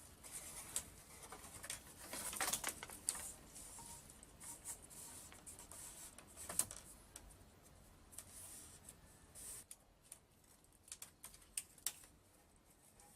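Irregular light clicks, taps and scraping of hand work with small natural building materials, busiest in the first half and thinning to a few sharp clicks near the end.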